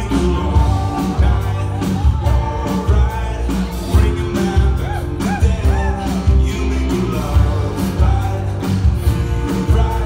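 A live band playing a rock-pop song with a steady drum beat and bass, with singing.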